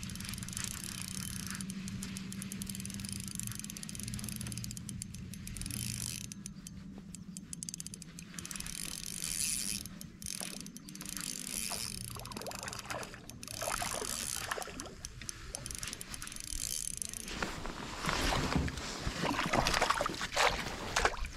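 Steady mechanical whirring with fine clicking from kayak fishing gear, then louder irregular splashing and knocking against the kayak in the last few seconds.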